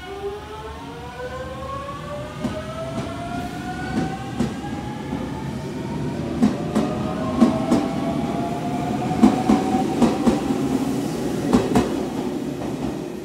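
JR Central 383 series Shinano limited-express electric train pulling out and accelerating. Its traction motors give a whine that climbs steadily in pitch, and from about six seconds in the wheels clack repeatedly over the rail joints as it gathers speed.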